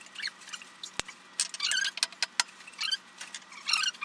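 Thin 0.5 mm aluminium sheet, wrapped round the piston rings as a homemade ring compressor, crinkling and scraping against metal in quick scratchy bursts, with one sharp click about a second in, as the oiled piston is pushed into the air hammer's cylinder. The sheet is too thin for the job and tears.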